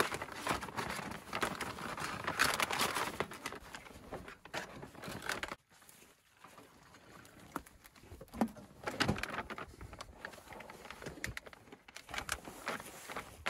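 Plastic field-ration pouches crinkling and rustling as they are handled. The sound drops away suddenly about five and a half seconds in, then the crinkling picks up again a couple of seconds later.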